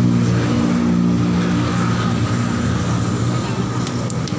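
A steady low engine hum, with street noise around it.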